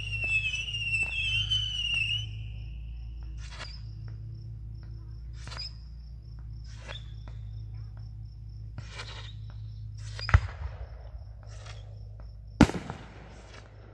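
Distant fireworks: a whistling firework wavering for about two seconds, then scattered pops and crackles, and two sharp bangs about ten and twelve and a half seconds in, the second from an aerial shell bursting. Insects chirp steadily in even pulses underneath.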